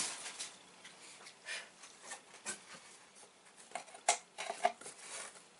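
Faint rustling and light clicks of packaging being handled as items are taken out of a subscription box, with a sharper click about four seconds in.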